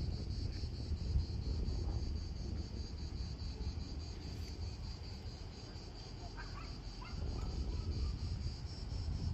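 Cicadas shrilling steadily in the sunlit scrub below, a fast even pulsing buzz, with low wind rumble on the microphone.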